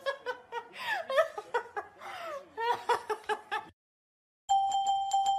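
A woman laughing in quick, repeated giggles; after a short silence, music starts near the end.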